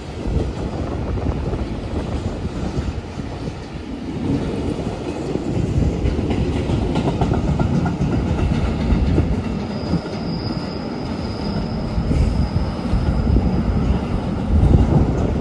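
Wagons of an SCT intermodal freight train rolling past on steel rails. The low noise of wheels on track swells and ebbs, and a faint high-pitched wheel squeal sounds about ten seconds in.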